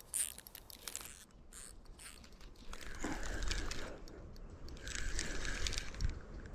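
Close handling noise: rustling and crunching of clothing and dry reeds while a spinning rod is held and worked, with a few sharp clicks at first and then two bursts about a second long each.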